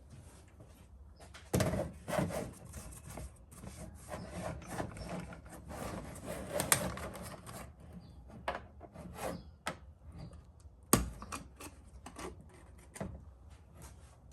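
A plastic motor-oil jug and funnel being handled: irregular rubbing, scraping and plastic clicks, busiest in the first half, with one sharp click about eleven seconds in.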